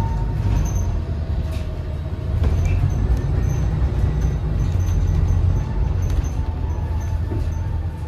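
Interior ride noise of a 2013 New Flyer XDE40 diesel-electric hybrid bus under way: a steady low drivetrain rumble with scattered rattles and a faint whine that drifts in pitch.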